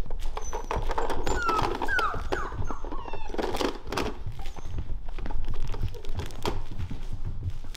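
Weimaraner puppies playing: a busy scatter of paw scrabbling, knocks and thumps, with a few short, high, falling squeals from the puppies between about one and a half and two and a half seconds in.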